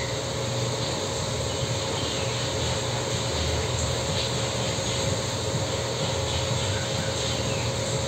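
Steady background noise: an even hiss with a low hum and a faint steady tone, unchanging throughout.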